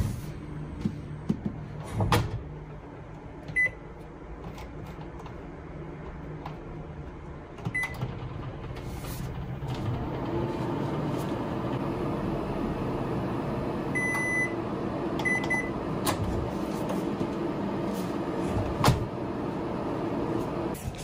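Countertop microwave oven: its door opens and shuts with plastic clunks, its control panel gives short high beeps, and from about ten seconds in it runs with a steady hum. A sharp knock comes near the end.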